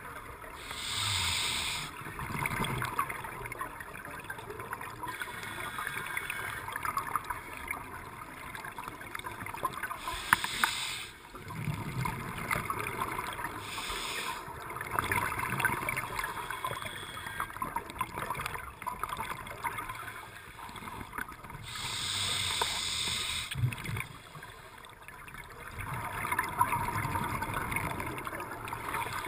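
A diver breathing underwater through a scuba regulator. A few hissing inhalations come at roughly ten-second intervals, each followed by a low rumble of exhaled bubbles, over a constant underwater crackle.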